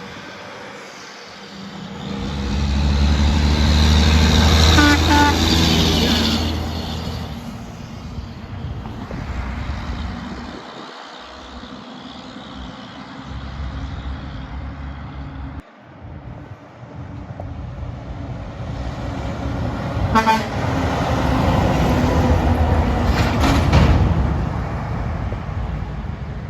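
Heavy trucks driving past close by, one a couple of seconds in and another about twenty seconds in, their diesel engines loud as they pass, with short horn toots.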